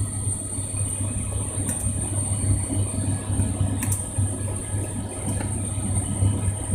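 Steady low engine-like drone with a slight flutter, under a constant thin high whine and a few faint clicks.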